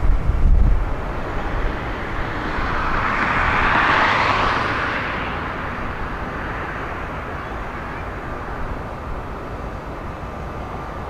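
A passing vehicle's noise swells to a peak about four seconds in and then fades away, over steady outdoor background noise.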